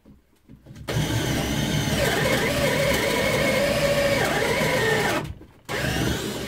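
Einhell TE-CD 18/40 18 V cordless drill in second gear boring a 35 mm bit into a wood block. Its motor whines under heavy load, the pitch wavering as it strains. It starts about a second in, stops briefly about five seconds in, then runs again.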